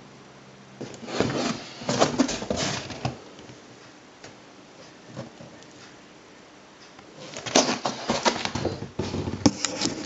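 A cardboard box being handled up close: two bursts of irregular scraping, rubbing and knocking, one about a second in and another from about seven seconds in.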